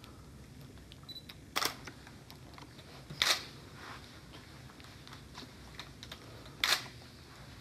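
Three sharp camera shutter clicks, spread a few seconds apart, each with a short tail, over a faint steady room hum.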